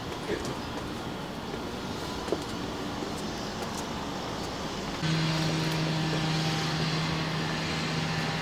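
Steady outdoor background noise. About five seconds in it gets louder and a steady low hum sets in.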